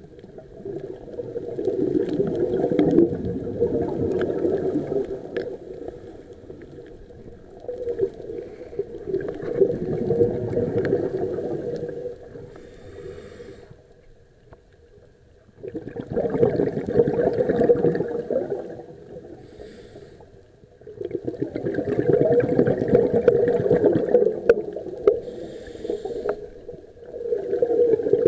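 Scuba regulator exhaust bubbles heard underwater: a diver's breath bubbling out in a burst every few seconds, five bursts with quieter pauses for the in-breaths between them.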